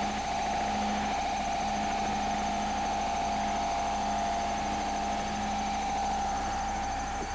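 Battery-powered electronic synthesizer holding a steady, wavering drone, with a lower tone under it that drops out for about a second and comes back.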